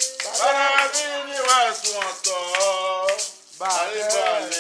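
Singing of a Haitian Vodou ceremonial song, long sliding held notes with a short break about three seconds in, over a rattle shaken in a steady quick beat.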